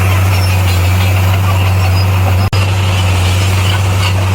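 Bulldozer's diesel engine running with a steady, loud low drone. The sound cuts out for an instant about halfway through.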